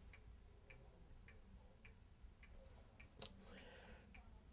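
Near silence with faint, regular ticking, a little under two ticks a second, and one sharper click about three seconds in.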